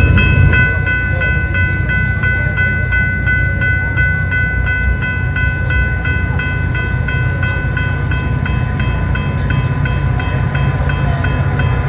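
Grade-crossing warning bell ringing about three times a second over the low rumble of a passing train; the bell fades near the end.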